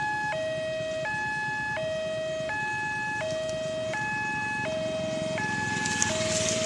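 Railway level-crossing warning alarm sounding, an electronic two-tone signal that alternates high and low steadily about every 0.7 seconds. Near the end the rumble of the passing train's diesel locomotive and coaches swells up beneath it.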